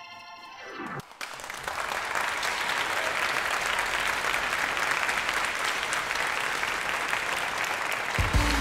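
Audience applause, a dense steady clapping that builds up over the first second or two and cuts off near the end as a guitar-led music track starts.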